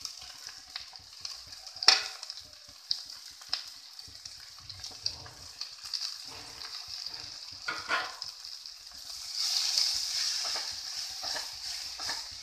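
Chopped agathi flowers and onions sizzling in hot oil in a clay kadai, stirred and scraped with a steel spoon. Sharp clinks of steel against the pan come, the loudest about two seconds in. The sizzle grows louder from about nine seconds in.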